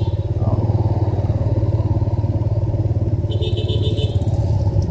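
Motorbike engine running steadily while riding along a road, its exhaust pulsing evenly, with a brief high-pitched sound a little over three seconds in.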